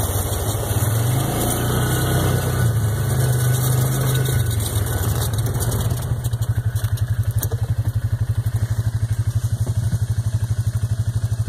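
Side-by-side utility vehicle's engine running as it drives over gravel, then settling about six seconds in to a slow, evenly pulsing idle.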